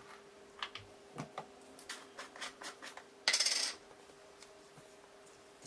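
Plastic shaker bottle of adobo seasoning handled with a string of small clicks and taps, then shaken once over chicken in a metal bowl: a short, hissy rattle of seasoning about three seconds in, the loudest sound.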